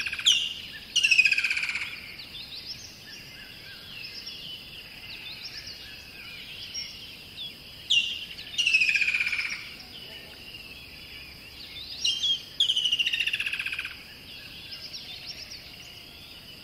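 Songbirds singing: a loud bird repeats short falling, rattling phrases, in pairs about every four seconds, over fainter chirps from other birds and a steady high buzz.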